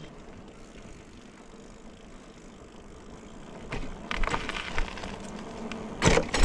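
Electric bike riding off: a steady low rolling noise, then rattling and clicking from about four seconds in and two loud knocks near the end.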